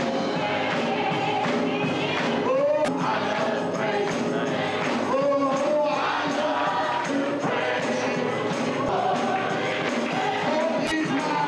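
Congregation singing a gospel song together, with rhythmic hand-clapping and percussion keeping the beat.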